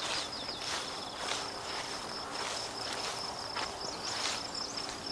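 Footsteps swishing through tall meadow grass, about three steps every two seconds, over a steady high-pitched insect trill.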